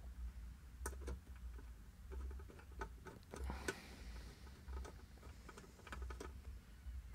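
Faint, irregular clicks and ticks of a small hand screwdriver turning a machine screw into a guitar amplifier's metal chassis.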